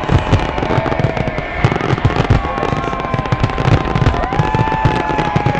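Big fireworks display: a dense, continuous barrage of bangs and crackles. A few long, held high tones run over the barrage.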